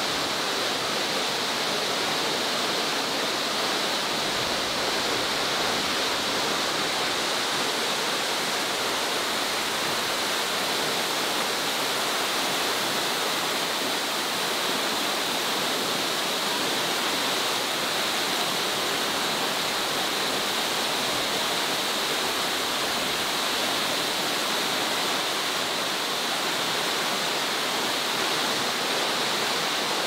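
Waterfall: water pouring and crashing in a steady, unbroken rush.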